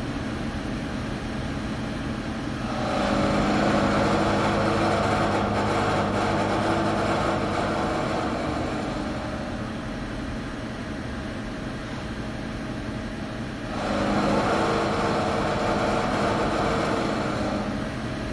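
Haas DS30SSY CNC turning center cutting a heat-treated 4340 steel bolt blank with a live tool, the machine running steadily throughout. A louder cut starts about three seconds in and eases off over the following ten seconds. A second cut starts about fourteen seconds in and fades near the end.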